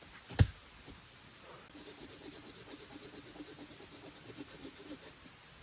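A sharp knock on wood, then about three seconds of quick, even rasping strokes of a hand tool cutting into firewood.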